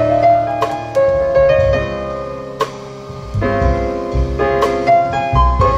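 Jazz piano passage with low bass and a few light drum and cymbal strokes, a recording played back through Magico M6 floor-standing loudspeakers and heard in the room.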